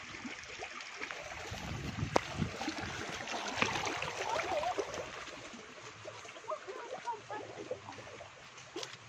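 Small stream trickling over rocks, growing fainter in the second half, with footsteps on the trail and a couple of sharp knocks about two and three and a half seconds in.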